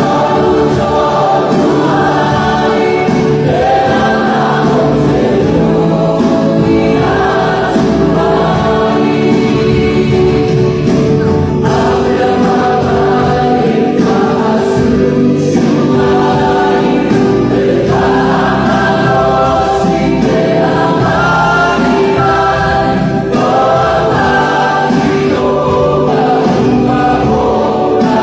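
A choir singing a gospel song, continuous and loud, in phrases that break off and restart every few seconds.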